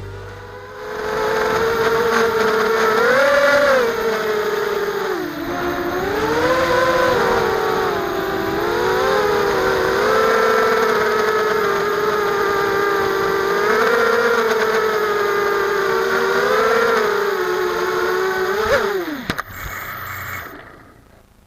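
Brushless motors and propellers of a NERO180 FPV quadcopter whining in flight, the pitch rising and falling with throttle. Near the end the pitch drops sharply as the motors spin down.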